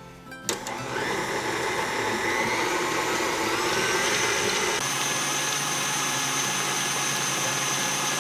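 Electric mixer beating eggs and sugar for pizzelle batter. It switches on with a click about half a second in, its whine rises as it speeds up, and then it runs steadily.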